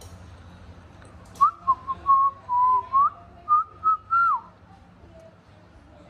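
A short whistled tune of about nine clear notes with small slides in pitch, starting about a second and a half in and lasting about three seconds.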